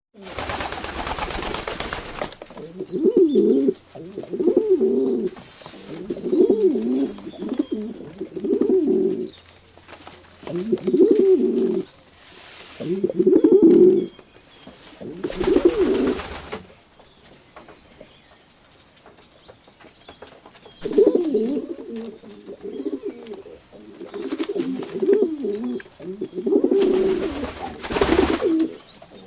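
Pigeons cooing: repeated low, warbling coos of about a second each, with short pauses between them and a longer lull midway. Three loud, rushing bursts of noise break in, at the start, about halfway and near the end.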